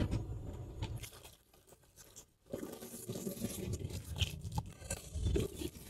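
Scattered small knocks and scraping from apricots being tipped out of a metal colander into a plastic basin, starting about two and a half seconds in.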